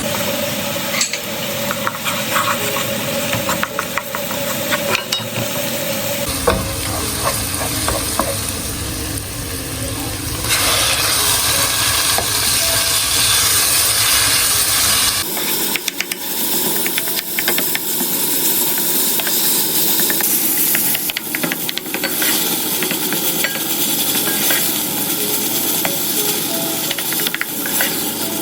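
Food sizzling in a hot pan while it is stirred, with scraping and clinking from the spoon. The hiss changes abruptly a few times and is loudest from about a third of the way in to about halfway.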